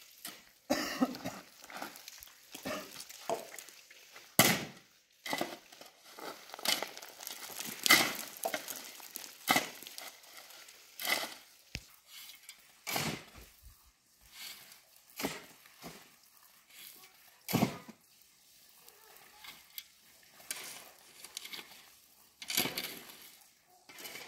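Dishes and kitchen utensils clattering and knocking at irregular intervals, with a few louder knocks.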